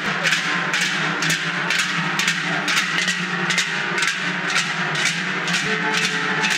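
Large cowbells (joareak) strapped to the backs of a troupe of Basque Joaldunak, clanging together in a steady rhythm of about two strokes a second with each marching step, over a continuous ringing wash.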